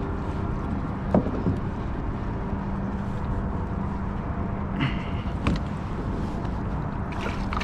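A steady low rumble with a faint hum, broken by a few short knocks and clicks as gear is handled in a plastic fishing kayak while the landing net is got out.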